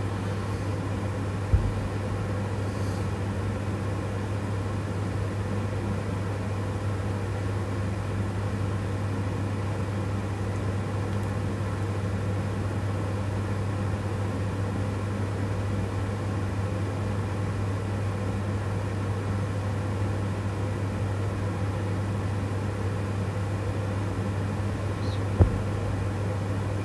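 Steady low mechanical hum, with two short sharp clicks, one about a second and a half in and one near the end.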